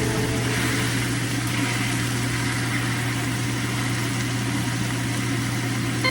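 Chicken thighs frying in a pan, an even steady sizzle, over a constant low hum.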